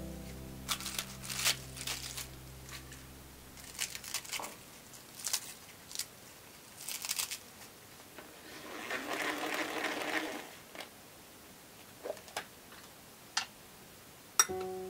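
Crisp snaps and crackles of iceberg lettuce leaves being torn apart by hand, then a plastic salad spinner whirring for about two seconds as it spins the washed leaves dry.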